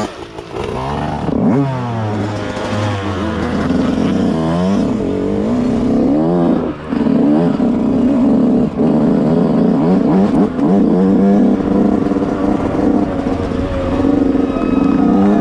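Yamaha YZ125 single-cylinder two-stroke motocross engine revving up and down as the bike rides along a dirt track, its pitch rising and falling again and again with the throttle, with a few brief drops where the throttle is shut off.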